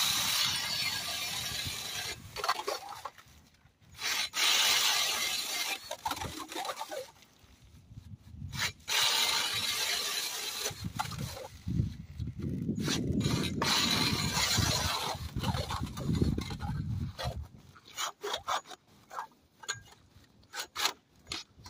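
Ryobi cordless drill spinning a 4-inch ice auger down through pond ice, a crunching, scraping grind in several runs with short pauses between them. Near the end the grinding stops and gives way to scattered clinks and knocks of ice chips as the auger is worked back out of the hole.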